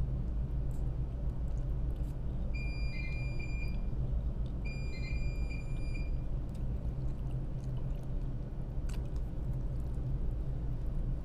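Steady low drone of the ASD tug's diesel engines, with two short runs of high electronic beeps a few seconds in, about two seconds apart.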